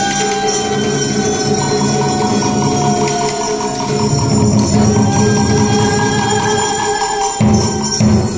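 Live traditional Vietnamese music from the water puppet theatre's ensemble: a sustained melody line that slides down and back up in pitch over a busy accompaniment, with two heavy drum beats near the end.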